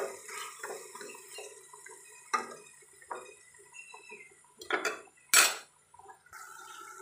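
A steel spoon stirring and scraping grated onions frying in a steel kadhai, with light clinks of the spoon on the pan. Louder clatters of metal on metal come about five seconds in.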